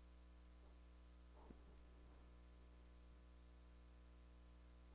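Near silence: a steady low electrical hum and faint hiss, with one faint click about a second and a half in.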